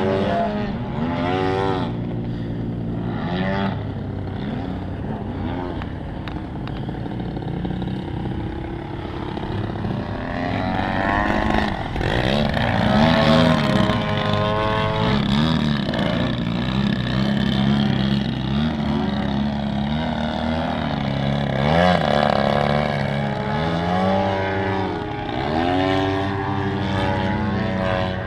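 Two giant-scale Extra 330SC radio-controlled aerobatic planes flying together, their engines and propellers droning continuously. The pitch rises and falls again and again as the planes pass and manoeuvre, loudest a little after the middle.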